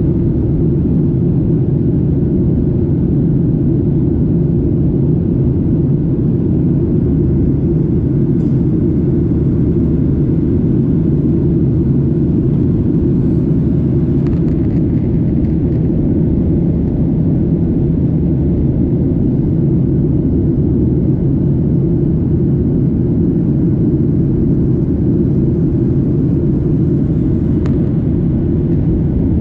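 Steady low rumble of an airliner in flight, heard from inside the passenger cabin: engine and airflow noise, loud and unchanging.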